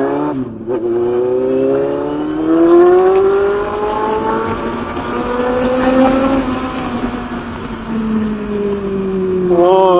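Sport motorcycle engine pulling hard: its pitch climbs steadily for about five seconds under acceleration, then falls as the throttle eases off. A man's voice calls out near the end.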